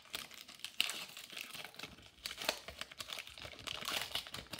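Wrapper of a 2020-21 Upper Deck Series 1 hockey card pack crinkling and tearing as it is opened by hand, a dense run of small crackles.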